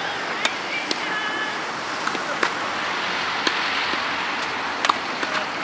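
Tennis ball struck by rackets through a serve and the rally after it: about five sharp pocks roughly a second apart, over steady wind noise on the microphone.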